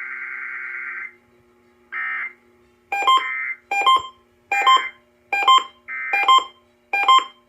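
Emergency Alert System test signal on the radio: the buzzing digital data burst of an EAS header ends about a second in, and a short burst of it follows. From about three seconds in comes a regular string of short, sharp electronic beeps a little under once a second.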